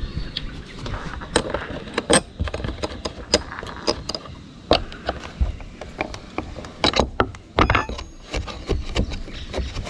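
Steel spanner working nuts loose on steel threaded rods through a plywood plate: irregular metallic clicks and clinks as the spanner is fitted, turned and repositioned and the nut is spun off by hand.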